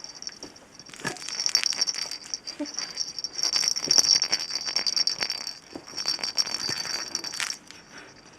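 A toy rattle shaken in quick irregular bursts, jingling and clicking over a high ringing tone; the shaking stops about a second before the end.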